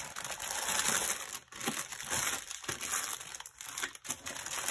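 Clear plastic packaging bags crinkling as they are handled and squeezed, an irregular crackle with a few short breaks.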